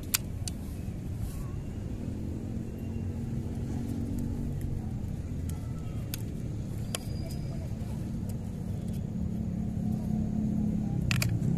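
Steady low engine-like rumble with a faint low hum that comes and goes and swells near the end, over a few sharp clicks and knocks from handling a rubber-powered wooden crossbow.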